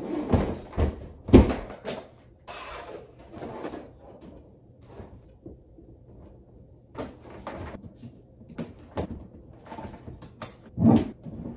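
The corrugated plastic hull of an Oru Inlet folding kayak being folded and handled. There are a few loud knocks in the first two seconds and a scraping rustle, then scattered clicks and another knock near the end.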